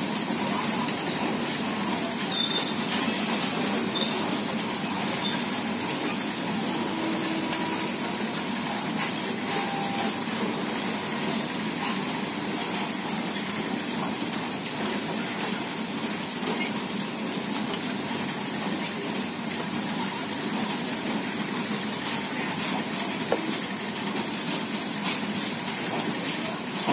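Freight train of open box wagons rolling past steadily, its wheels rumbling and clattering on the rails in an even, unbroken run.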